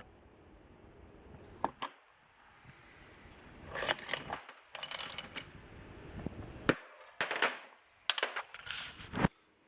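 Scattered sharp clicks and metallic knocks from tools and engine parts being handled, coming in short clusters.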